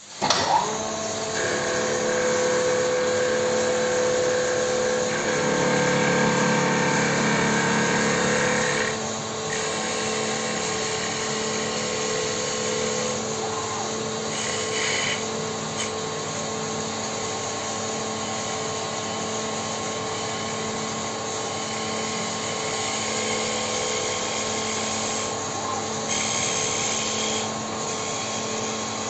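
Automatic CNC mini wood lathe running: a steady motor hum with the noise of the cutters shaving a wooden blank, loudest from about five to nine seconds in, with a few short hissing bursts later on.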